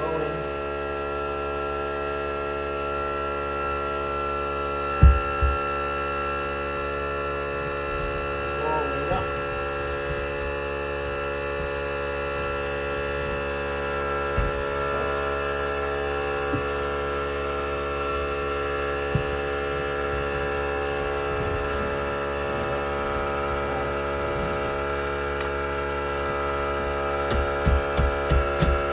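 Steady electrical hum made of many fixed tones, with occasional sharp thumps and knocks and a quick cluster of them near the end.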